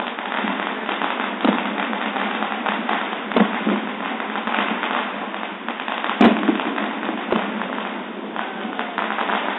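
Ground fountain firework spraying sparks with a steady crackling hiss. A few sharp bangs cut through it, the loudest about six seconds in.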